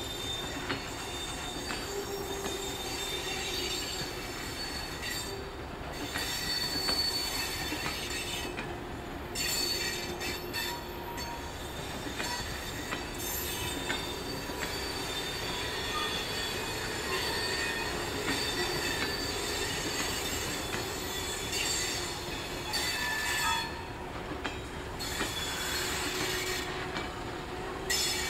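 Heritage passenger carriages rolling slowly past on steel rails: a steady rumble of wheels and running gear with occasional clicks, and high-pitched wheel squeal that comes and goes throughout.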